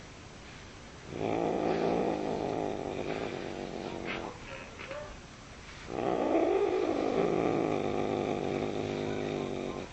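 Domestic cat growling in two long, drawn-out spells, the sound of an annoyed, grumpy cat. The second growl rises and falls in pitch near its start.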